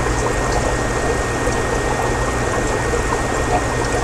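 Steady trickling and splashing of aquarium water from the fish room's filters and overflowing tanks, over a constant low pump hum.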